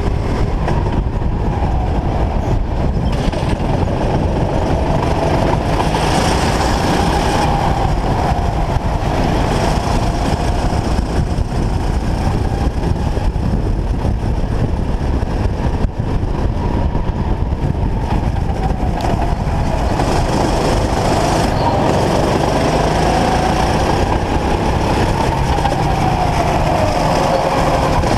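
Racing go-kart engine running hard, its pitch rising and falling as the kart accelerates out of corners and lifts or brakes into them, heard from onboard under a heavy rush of wind and road rumble.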